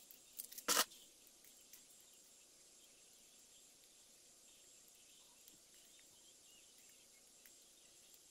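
A quick cluster of sharp clicks from LEGO Technic plastic parts being handled, about half a second in, then only a faint hiss with the odd small tick.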